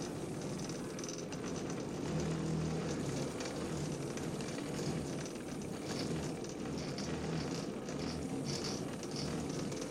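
CNC plasma table's gantry motors driving a vinyl-cutting head, a low motor hum that starts and stops in short stretches as the head moves, with light rattling.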